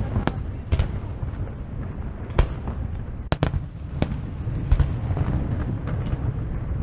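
Fireworks salute bursting over the city: a string of sharp bangs, irregular and some in quick pairs, over a continuous low rumble.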